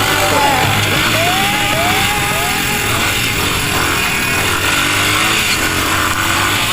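Dirt bike engine revving under hard throttle. The pitch climbs several times in quick succession in the first few seconds, then holds steadier.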